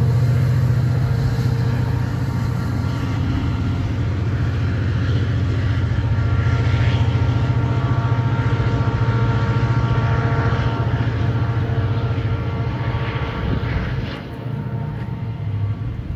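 EMD GP40 diesel locomotive running steadily as it pulls its train away; the steady engine hum drops off near the end.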